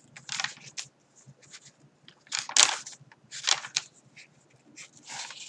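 Coffee-dyed paper pages of a handmade journal being turned and handled, with crisp rustles and flaps. The loudest comes about two and a half seconds in, with another about a second later.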